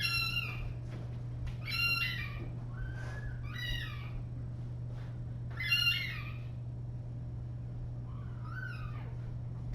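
Orphan kittens about three weeks old meowing: about five short, high-pitched cries a second or two apart, the last one fainter. A steady low hum runs underneath.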